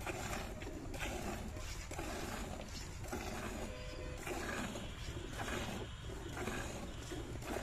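Hand milking a cow: milk squirting from the teat into a metal pail, a rhythmic hiss about twice a second, one squirt for each squeeze.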